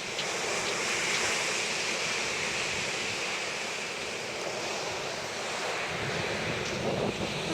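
Sea waves washing onto the shore, with wind buffeting the microphone. The wash swells about a second in, then slowly eases.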